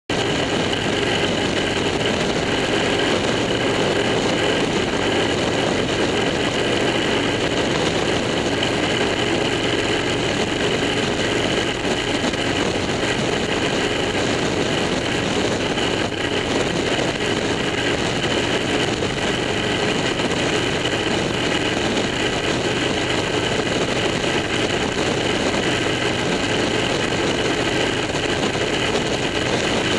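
Steady road, tyre and engine noise inside a car's cabin while it cruises at highway speed.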